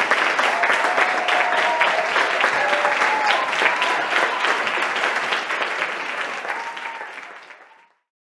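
Theatre audience applauding, a dense patter of many hands clapping with a few drawn-out calls over it. The sound fades out near the end.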